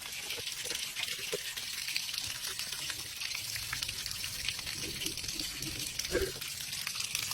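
Water running steadily out of a Samsung top-loading washer's disconnected drain pump connection, a continuous hissing splash. This is the water left standing in a washer that will not drain.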